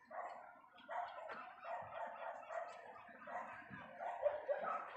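A flock of seagulls calling, many calls overlapping one after another with only brief breaks.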